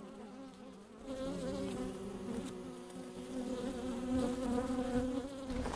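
Honeybees buzzing as they fly around a hive. Several steady hums at slightly different pitches overlap, growing a little louder after the first second.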